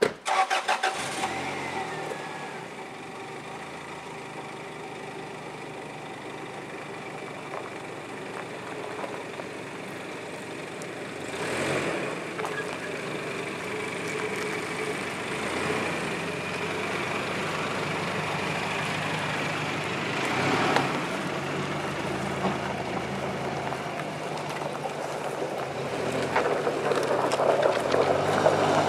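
Toyota Tacoma pickup's engine starting abruptly, then idling and running as the truck pulls away towing a felled log on a steel cable. It gets louder near the end as the truck passes close by.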